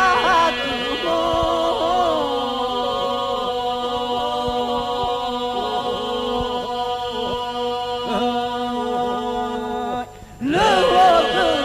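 Male vocal group singing Albanian polyphonic folk song of the Gjirokastër style, unaccompanied: a steady held drone under the ornamented lines of the lead and answering voices. The voices break off briefly about ten seconds in and come back in together on the next phrase.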